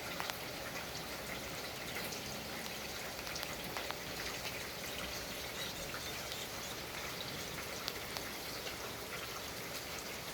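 Heavy rain falling steadily, with many individual drops hitting close by as sharp ticks.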